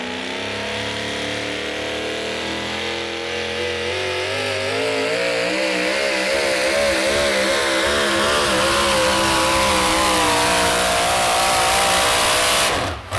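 Modified 4x4 pulling truck's racing engine at full throttle through a pull: its pitch climbs as the truck gets going, wavers up and down in the middle, climbs again, then cuts off sharply near the end as the driver lets off.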